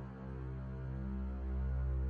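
Background music: a dark, sustained low drone of held tones.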